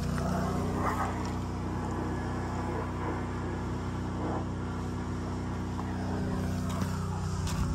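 Chevrolet Silverado 1500 pickup's engine idling steadily.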